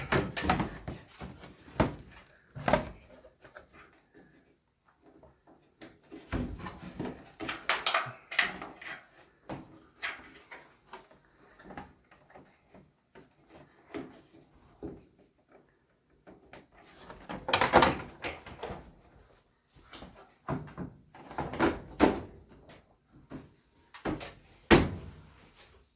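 Repeated knocks, clunks and clatter of a clothes dryer's sheet-metal panels and parts being handled and fitted, in irregular clusters with short quiet gaps.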